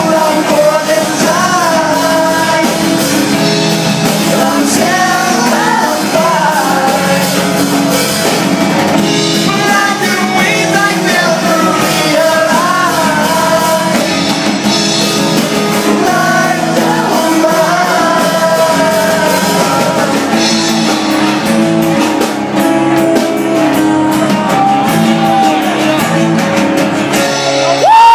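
Live acoustic rock performance: a male singer singing over acoustic guitar accompaniment.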